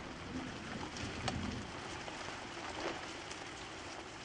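Steady hiss of heavy rain falling on a city street and a car, with a few faint taps of drops.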